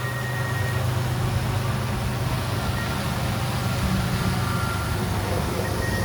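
A steady low engine-like rumble with a hiss of noise over it, like a heavy vehicle running nearby.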